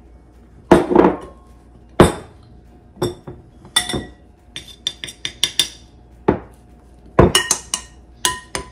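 Glass mixing bowls knocking and clinking, and a metal spoon tapping and scraping against the inside of a glass bowl: an irregular run of sharp clinks with short ringing, the loudest knocks about one and two seconds in.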